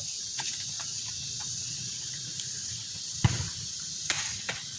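Cicadas (turaes) buzzing steadily in a high, even drone, with scattered short clicks and a sharp thump a little over three seconds in.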